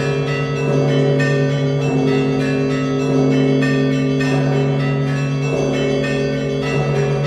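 Russian Orthodox church bells rung in a festal peal (zvon): a large bell's low tone sounding under a quick, continuous pattern of strikes on smaller bells, their tones overlapping and ringing on.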